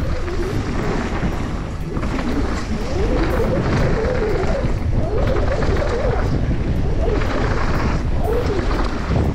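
Mountain bike descending fast on a rough dirt trail: wind buffeting the action camera's microphone over tyres rolling and rattling across the loose dirt and stones.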